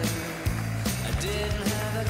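Background music with a steady beat, about two beats a second, over a bass line and held melody notes.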